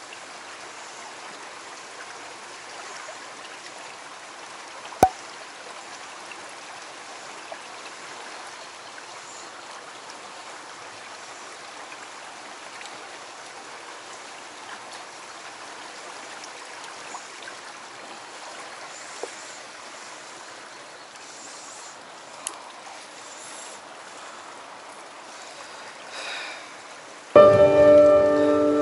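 Steady rushing of a flowing mountain stream, with one sharp click about five seconds in. Near the end, music cuts in suddenly.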